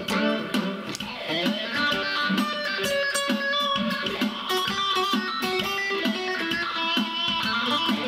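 Acoustic guitar played through a Zoom G1 Four multi-effects pedal into a Roland Cube-10 amp set on JC Clean with a dash of reverb. It plays a picked melody of single notes and chords, some of them sliding in pitch.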